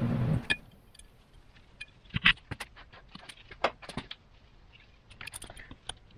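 Small metal parts clicking and clinking as a clutch release fork's spring-steel retaining clips are fitted onto the throwout bearing by hand. The clicks are scattered and irregular, with a sharp pair about two seconds in.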